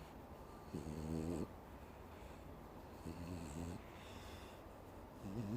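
A pet snoring contentedly in slow, regular breaths, three snores with a wavering pitch about two seconds apart; the owner says she snores like this when she is happy.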